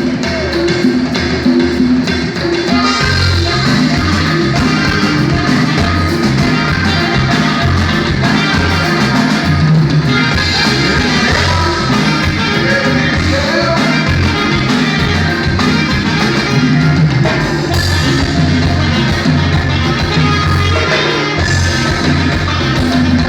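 Norteño band music at a steady dance beat; the bass and drums fill out about three seconds in.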